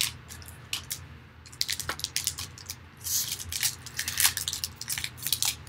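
Foil wrapper of a trading-card pack crinkling and being torn open by hand, with a run of small clicks and rustles from handling the packs and a louder tearing rasp about three seconds in.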